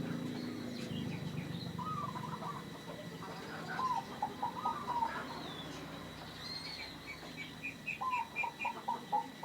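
Zebra dove (perkutut) cooing: three phrases of short, quick staccato notes, about two seconds in, around four to five seconds, and again near the end. A faint run of higher chirps from another small bird comes in the second half.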